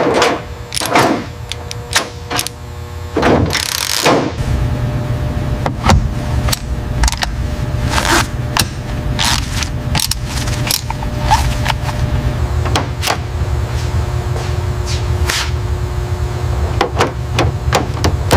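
Mechanical workshop clatter: a few sharp knocks in the first few seconds, then a steady low rumble with scattered clicks and taps over it.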